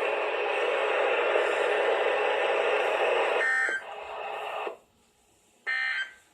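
Weather radio receiver hissing with static for about three and a half seconds, then two short, buzzy digital data bursts with near silence between them. These are the SAME end-of-message code that closes a NOAA weather radio broadcast.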